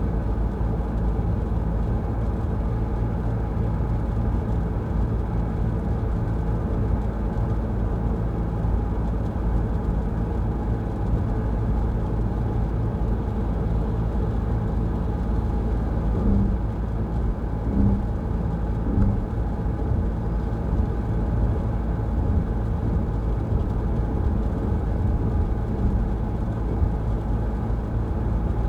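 Car driving on a wet road: steady rumble of engine and tyres, with a few brief low blips a little past the middle.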